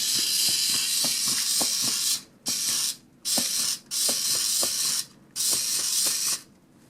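HexBug Spider micro robot's tiny geared motor whirring as it walks, with regular light ticks from its leg mechanism. It stops and restarts abruptly several times as it is driven in short spurts.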